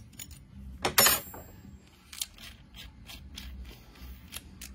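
Small metal clicks and clinks from a hand rivet nut tool being handled as its threaded head is tightened with a spanner wrench, with one sharp ringing clink about a second in.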